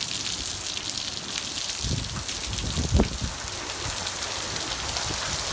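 Heavy desert monsoon rain pouring steadily, a dense even hiss. There is a low rumble about two seconds in and a short low thump about three seconds in.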